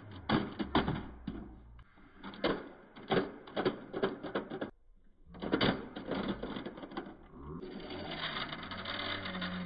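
Diecast model SUV being handled on a concrete floor: a quick run of small clicks and taps from its metal body and plastic parts. Near the end a steadier rasping sound as the model is moved along the concrete.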